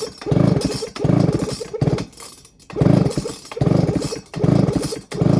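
Baumr-AG SX92 two-stroke chainsaw being pull-started: about seven quick pulls on the recoil starter, each a short burst of cranking, with a brief pause about two seconds in. The engine does not catch, which the owner puts down to the carburettor not getting fuel.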